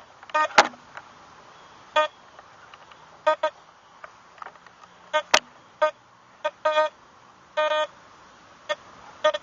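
Metal detector, a Teknetics T2 SE, giving short beeps at one steady pitch as the search coil is swept over a dug hole, in irregular single and doubled chirps. Two sharp clicks, about half a second and five seconds in, are the loudest sounds.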